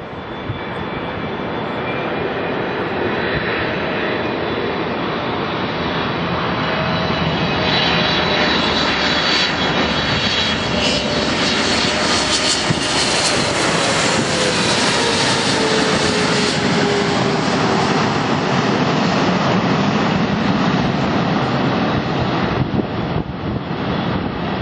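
A Boeing 777-300ER's two GE90-115B turbofans on final approach, growing louder as the airliner passes close by, with a whine that falls in pitch as it goes past, then a steady rumble as it flies on toward touchdown.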